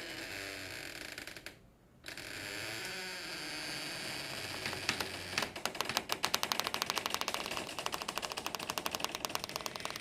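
Horror-film door sound effect: a faint wavering creak over hiss, broken briefly, then from about halfway a fast rattling run of sharp clicks, around eight to ten a second.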